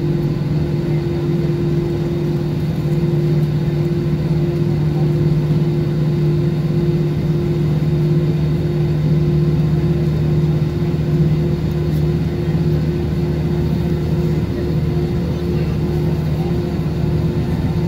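Cabin noise of an Airbus A320 taxiing: a steady hum from the jet engines at taxi power over a low rumble.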